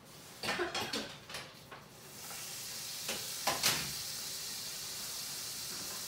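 Some clatter and knocks of kitchen utensils, then about two seconds in food hits a hot frying pan and starts sizzling steadily, with a couple more knocks of a utensil against the pan.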